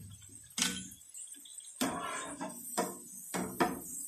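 Crisp, batter-fried potato chips being set down one after another on a glass serving platter, giving about five sharp clinks and clatters on the glass.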